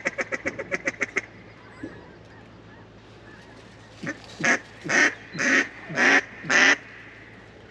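Duck quacking: a fast run of about a dozen short clucks, then five loud, drawn-out quacks about half a second apart.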